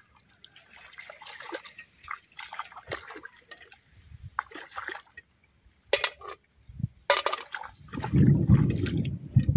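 Small splashes and sloshing of hands working in shallow rice-paddy water while snails are picked, with a couple of sharp clicks about six and seven seconds in. A louder low rumble sets in near the end.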